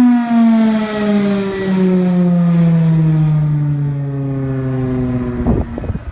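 Federal Signal Thunderbolt outdoor warning siren winding down at the end of its test, its tone sliding slowly and steadily lower in pitch. Several rough thumps come in near the end as the siren fades.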